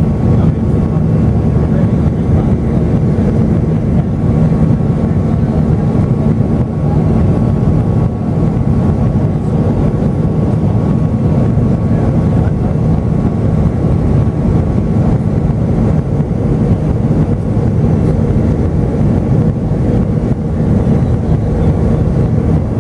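Cabin noise of an Airbus A320 in its climb after takeoff: a loud, steady, deep drone from its CFM56-5A3 turbofan engines and the airflow past the fuselage. A faint steady whine sits above it throughout.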